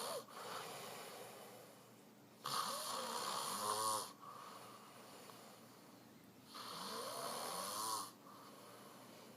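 A man snoring in his sleep: rough snores about every four seconds, each lasting about a second and a half, with quieter breathing between them.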